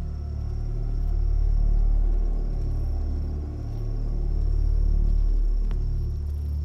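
Deep, low rumbling drone that slowly swells and fades about every three seconds, with a faint click near the end.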